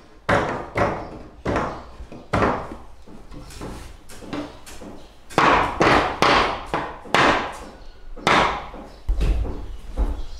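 About a dozen sharp knocks on wood at uneven intervals, each dying away quickly. The loudest blows fall in the second half.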